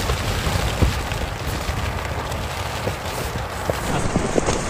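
Heavy rain falling on a camping tent's fabric, heard from inside: a steady hiss with scattered sharp drop hits.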